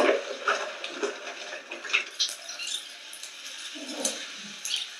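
Irregular crackling and clicking, with a couple of brief low rumbles, from a lava flow slowly pushing over a burning building and its metal-sheet debris. The sound is thin, with no deep bass.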